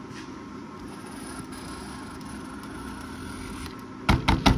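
A steady low hum, then near the end four quick, loud scratching strokes of a pen on a cardboard checklist taped to a truck door, as an item is crossed off.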